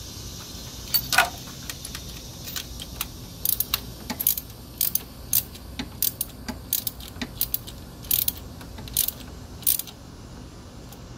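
Hand socket ratchet clicking in short, irregular runs of strokes as spark plugs are snugged down into the engine's cylinder head.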